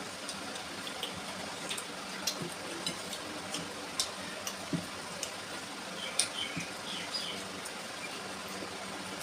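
Mouth sounds of a person eating curry and rice: irregular soft smacks and chewing clicks over a steady hiss.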